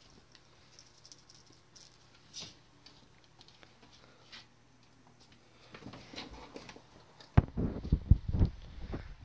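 Faint light taps and rustles, then a cluster of loud, dull knocks and bumps in the last two seconds.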